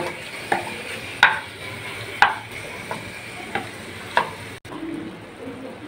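Wooden spatula stirring chicken pieces around a metal frying pan, about six short scraping strokes, over a steady sizzle of the chicken frying on high heat. The strokes stop a little past four seconds in, leaving only the frying.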